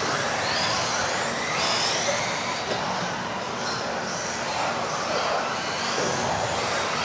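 Several modified-class 1:10 electric off-road RC cars racing, their motors and drivetrains whining in high glides that rise and fall as they speed up and slow down. Underneath is a steady din that echoes around the hall.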